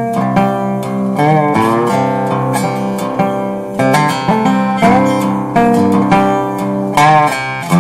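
Guitar intro music, plucked and strummed, with a few notes sliding in pitch.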